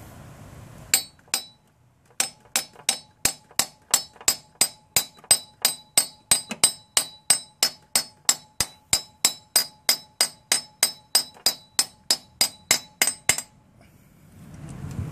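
Hammer tapping a metal bushing installer to drive a 20 mm freeze plug into a coolant passage of a Mazda 12A rotary engine. Two taps, a short pause, then a steady run of about three ringing metal taps a second for some eleven seconds as the plug is driven home.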